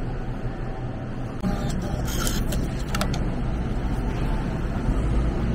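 Station ticket vending machine printing and dispensing a paper ticket: a short mechanical whirr about two seconds in, then a click, over a steady low rumble.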